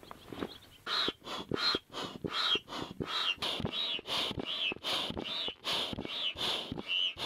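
Foot pump being pressed over and over to inflate an inflatable boat through its hose: a fast, even series of short puffs of air, about three a second, starting about a second in.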